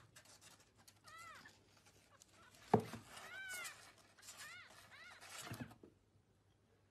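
A kitten mewing several times in short mews that rise and fall in pitch. A sharp knock comes a little under three seconds in, and a softer thump comes just before the sounds stop.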